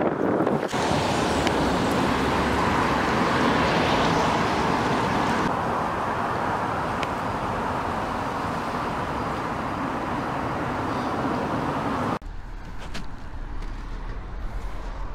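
Steady road traffic noise, a continuous rush without distinct events, cut abruptly a few times; it drops to a quieter, thinner street ambience about twelve seconds in.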